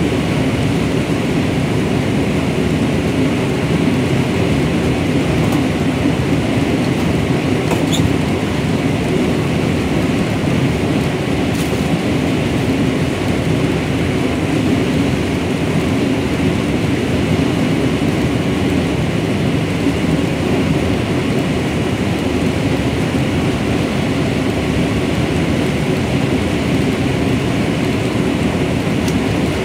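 A combine harvester with a corn header running steadily while harvesting dry standing corn: a constant, loud mechanical rumble and clatter from the engine and the header taking in the stalks.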